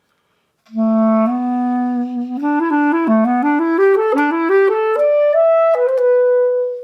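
Clarinet playing an instrumental phrase between sung verses of a folk song: a held low note, then a run of notes climbing step by step to a long, higher held note that fades out at the end.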